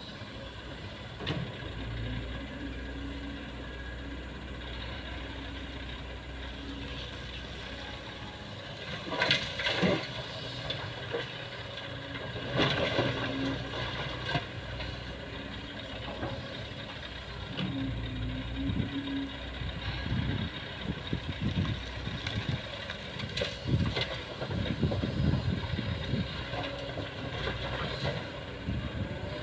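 Diesel engines of a SANY hydraulic excavator and a six-wheel dump truck running steadily, broken by several loud bursts of clatter as coal is dumped from the excavator bucket into the truck's steel bed. The biggest bursts come about nine and thirteen seconds in, with more near the end.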